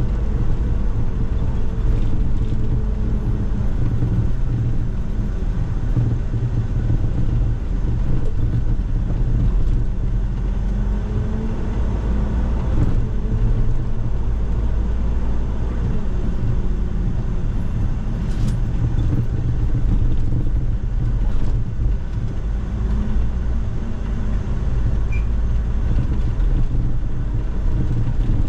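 Iveco F1CFA401A 3-litre CNG engine of an MMI Urby LE city bus running under way, heard from inside the bus, its pitch falling and rising a few times as the bus slows and pulls away. A heavy low road rumble and a steady air hiss run underneath.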